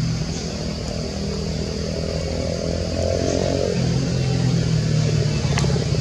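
A motor vehicle engine running steadily, a little louder in the second half, over a steady high hiss.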